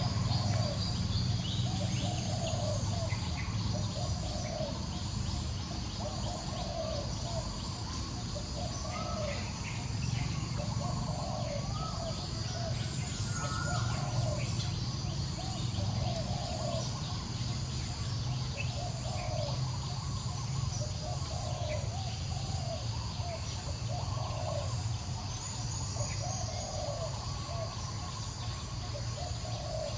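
A bird calling over and over, a short call every second or so, over a steady high insect drone and a low rumble.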